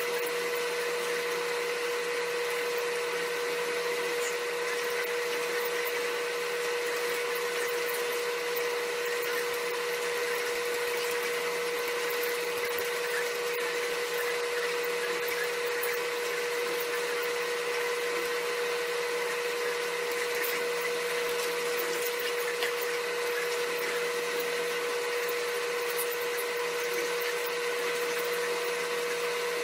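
Steady electric-motor hum with a high whine, holding one pitch and level without change.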